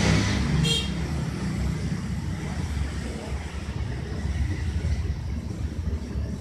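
Steady low rumble of background road traffic, with one brief high-pitched tone about three-quarters of a second in.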